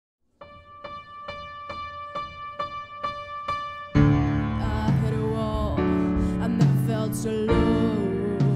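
A piano chord repeated softly about twice a second, then about four seconds in a live band comes in loudly around it, with drum kit hits under the piano.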